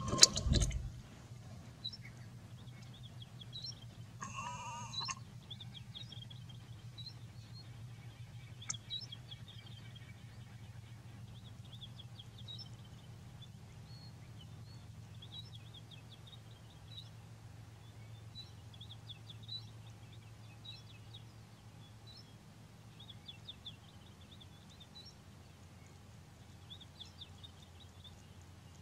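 Faint high-pitched chirping and twittering calls scattered throughout, over a steady low hum. A short whining call comes about four and a half seconds in, and a sharp knock just after the start.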